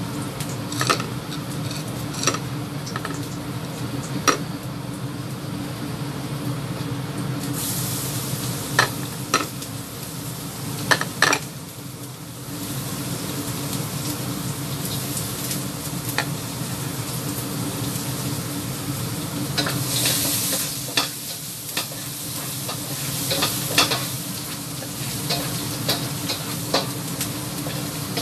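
Ginger and minced garlic sizzling in hot oil in a pan, with a spatula clicking and scraping against the pan now and then as it is stirred. The sizzle turns louder and brighter about seven seconds in.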